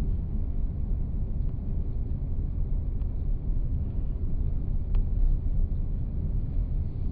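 Steady low rumble of road and engine noise inside a car moving at highway speed, with a faint tick about five seconds in.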